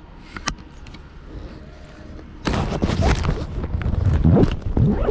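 Rubbing and knocking on the camera's own microphone as the camera is handled, starting with a few faint clicks and turning loud and rough about two and a half seconds in.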